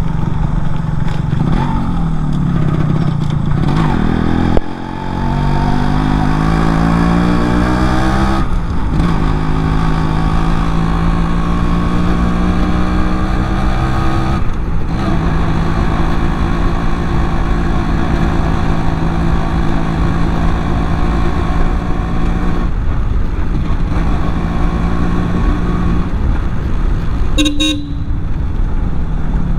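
Yamaha RX135 two-stroke single-cylinder motorcycle engine running under way. It rises in pitch as it accelerates and drops briefly at several gear changes, about four and a half, eight and a half and fourteen and a half seconds in. A short horn toot comes near the end.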